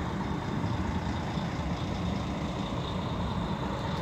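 Bus engines idling, a steady low rumble with no breaks.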